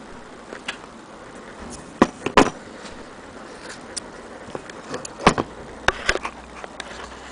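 Scattered clicks and knocks of small hard objects being handled, with a sharp pair about two seconds in, another loud knock about five seconds in, and fainter ticks between.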